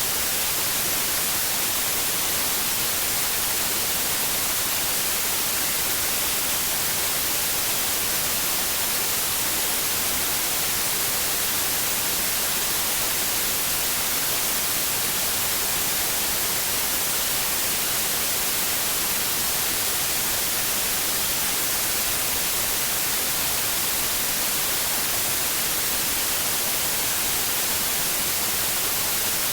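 Steady white noise: an even hiss, brightest in the high frequencies, without change or break.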